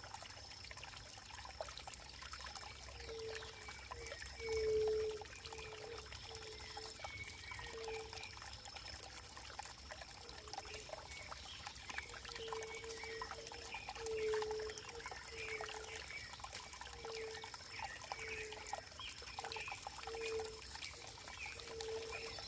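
Running water trickling and pouring, with a short low gurgling note repeating irregularly about once a second over a steady splashing patter.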